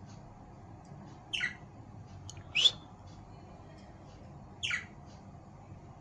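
Pet budgerigars giving three short, high chirps, the first and last sweeping down in pitch and the middle one a louder, harsher squawk.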